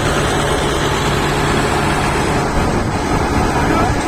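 Old crawler tractor's diesel engine running steadily and loud, with a dense low rumble.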